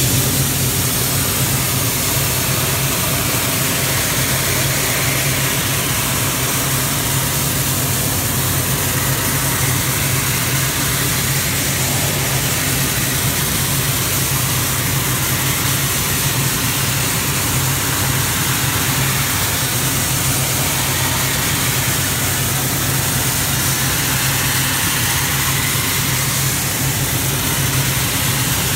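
Dry ice blaster nozzle jetting pellets on compressed air: a continuous hiss over a steady low engine hum.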